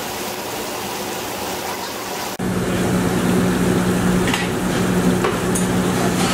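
Shrimp in red sauce sizzling in a sauté pan over a gas burner. About two and a half seconds in the sound jumps louder and a steady low hum comes in with it.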